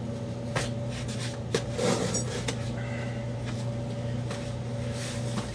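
Light clicks and knocks of small objects being handled on a workbench, a few scattered in the first half, over a steady low electrical hum.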